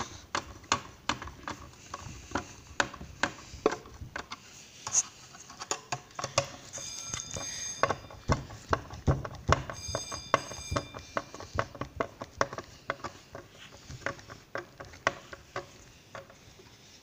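Irregular metallic clicks and ticks from a hand tool turning the screws that jack an ECU lid off its glued case, with two short high squeaks about seven and ten seconds in.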